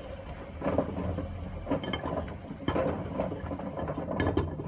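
Hotpoint front-loading washing machine drum tumbling a load of soap bars and rags: a steady motor hum under irregular knocks and clatters as the soap bars drop in the drum.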